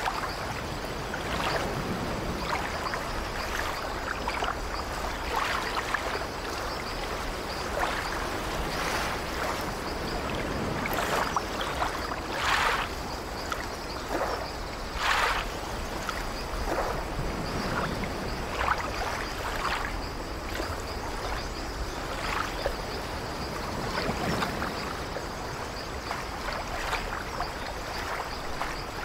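Small waves of gentle surf washing up over a fine pebble beach: a steady hiss of water over the stones, with irregular louder washes as waves break, two of the strongest about halfway through.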